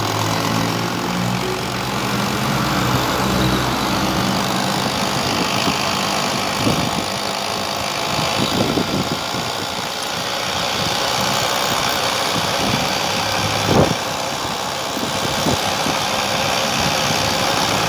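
Homemade electric velocipede with a 2 kW washing-machine BLDC motor and belt drive, running along the road with steady wind and road noise and a few knocks from bumps. The drive belt is slipping at high speed. A low hum in the first few seconds fades out.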